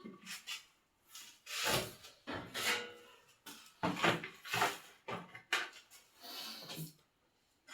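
Irregular scraping and rubbing strokes, about a dozen of them, each under half a second long.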